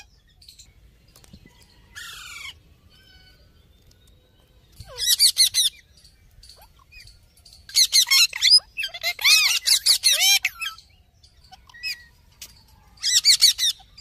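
A flock of rose-ringed parakeets calling in bursts of squawks, about two, five and thirteen seconds in, with the longest and loudest run from about eight to ten and a half seconds in.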